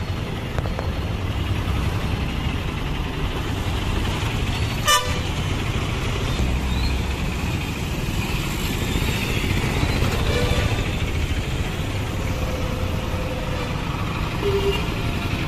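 A procession of auto-rickshaws driving past, their small engines running steadily, with several short horn toots, one sharper toot about five seconds in.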